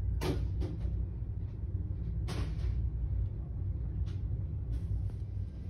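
Steady low rumble of shop background noise, with a few brief knocks and rustles of decorative pumpkins being handled on a metal store shelf.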